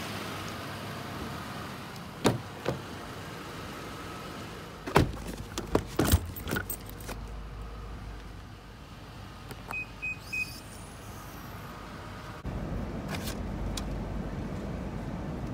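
SUV power liftgate being closed: a few knocks and clacks of luggage and the cargo area first, then three short high warning beeps after the close button is pressed, and the liftgate motor running steadily as the gate comes down.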